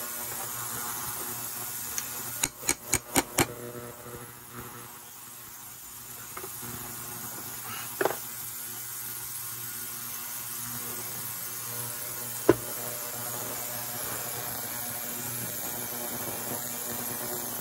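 Hand tools working on small-engine parts: a quick run of about five sharp clicks, then two single knocks several seconds apart, over a steady hum.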